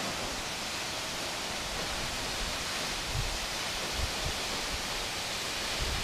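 Steady rushing hiss of a tall mountain waterfall falling down a cliff face, with a few brief low rumbles.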